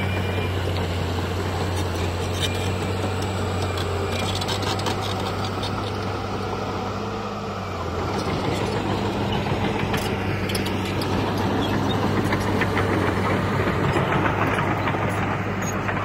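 A heavy diesel earthmoving machine running steadily, with rattling and clattering over a low engine drone. The engine note drops briefly about halfway through, then picks up and grows louder toward the end.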